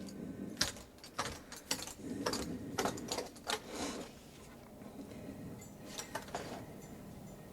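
Metal clogging taps clicking on a hard floor in an irregular run of steps: a quick cluster of sharp clicks for the first few seconds, then a few more about six seconds in.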